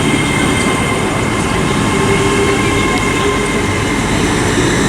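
Great Western Railway trains, among them a Class 800 Intercity Express Train, pulling out of the station. A steady rumble of wheels and running gear with a few even, high whine tones over it.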